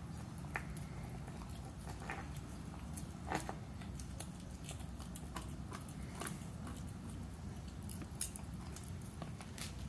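Cane Corso puppy gnawing a bone: irregular wet chewing with teeth clicking and crunching on it, the loudest cracks about three seconds in and again near the end.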